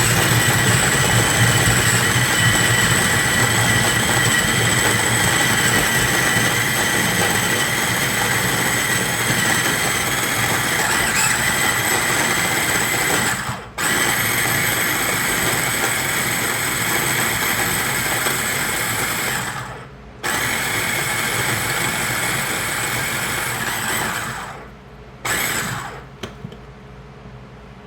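Small electric food chopper's motor running, chopping raw onion, with a steady whine. It runs in three long stretches with brief stops between them, then gives one short pulse near the end.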